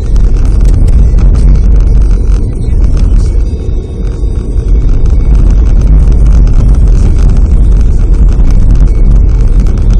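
Car driving: a loud, steady low rumble of road and engine noise.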